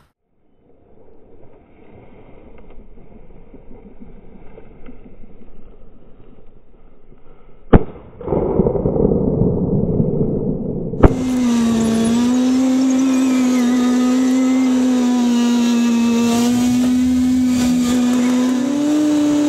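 A single shotgun shot about eight seconds in, then from about eleven seconds an ATV engine running at a steady speed, its pitch stepping up near the end.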